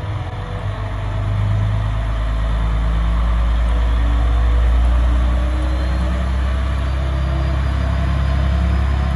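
Diesel engine of a single-car JR KiHa 120 railcar idling at the platform: a steady low drone that grows louder about a second in.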